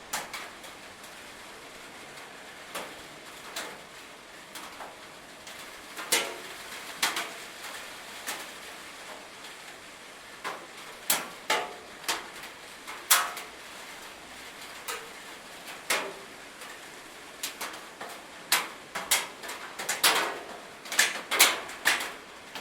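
Rain on a metal roof: a steady faint hiss under irregular sharp knocks of heavier drops striking the metal, coming more often near the end.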